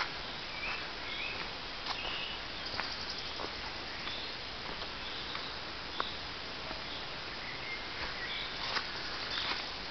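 Woodland ambience: a steady hiss with short, high bird chirps now and then, and a few sharp clicks scattered through it.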